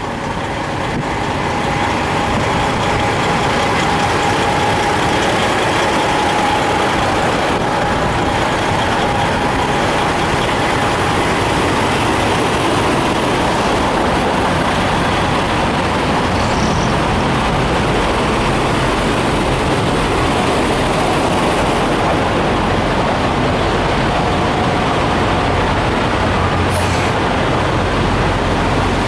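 Steady engine noise of idling diesel semi trucks, with a low hum that grows stronger in the last several seconds.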